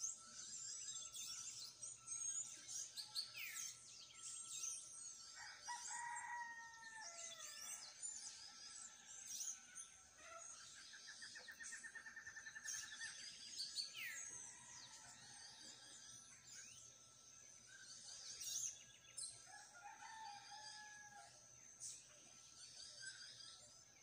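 Outdoor birdsong: many small birds chirping and singing over each other, with a rapid trill about ten seconds in. A rooster crows about six seconds in and again briefly near twenty seconds, and a thin steady tone runs beneath.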